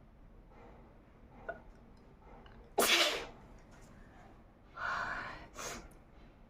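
A woman sneezing: one loud, sudden sneeze about three seconds in, then a second, weaker sneeze about two seconds later. The sneezes are brought on by tickling the inside of her nose with a cotton ear bud.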